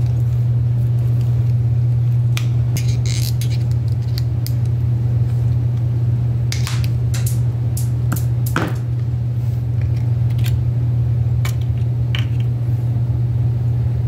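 A steady low hum runs throughout. Over it come scattered clicks and scrapes of a small plastic servo tester case being pried open with a flat screwdriver and pulled apart by hand.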